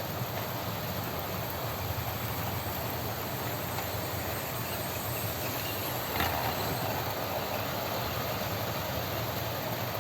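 OO gauge model train running on its track, giving a steady rumble of motor and wheels on the rails. It swells slightly about six seconds in.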